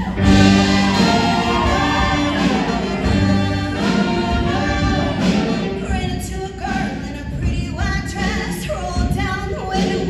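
Show choir singing in full voice over instrumental accompaniment, coming in loudly just after the start.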